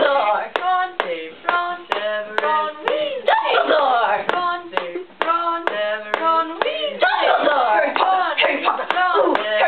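A steady tick kept with the hands, about two sharp claps a second, under voices singing a repeated chant. More voices overlap from about seven seconds in.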